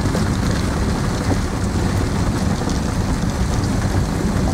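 Heavy rain on the enclosed shell of a velomobile while it rides along a wet road: a steady noise of rain hitting the body over a constant low rumble.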